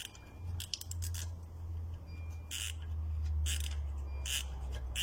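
M8×1.5 tap being turned into a drilled hole, cutting a thread in metal: short scraping squeaks about once a second over a low steady hum.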